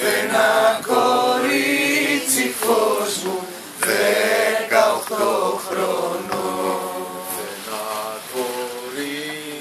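A man singing a Greek folk song unaccompanied, in long, drawn-out, wavering notes.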